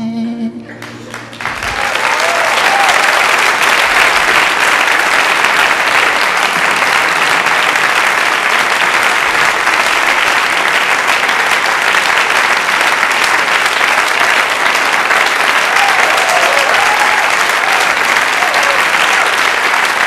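A held sung note ends right at the start. About a second and a half in, a large audience breaks into steady, sustained applause.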